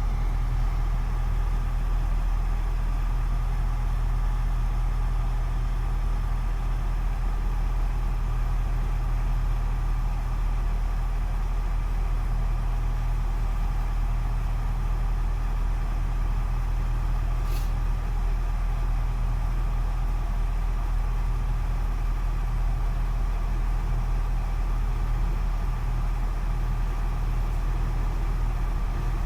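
A truck crane's engine running steadily as it drives, a constant low drone with no change in pitch.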